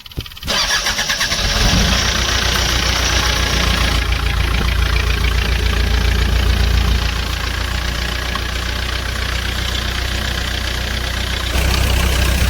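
A Bobcat loader's diesel engine is cranked on the starter about half a second in, catches within a second and keeps running steadily. It eases a little around seven seconds in and gets louder again near the end. It now starts because the blown fuel-pump fuse has been replaced and the pump is delivering diesel again.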